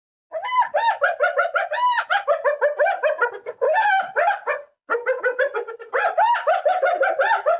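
Spotted hyena giggling: a rapid run of short, high-pitched notes that rise and fall, several a second. The calling comes in two bouts with a brief break a little past halfway.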